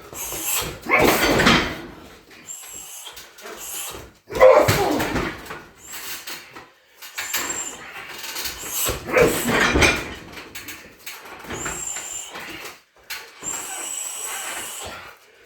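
A series of shin kicks thudding into a 60 kg heavy bag, the hardest about one, four and nine seconds in, with the fighter's grunts and hissing breaths around the strikes.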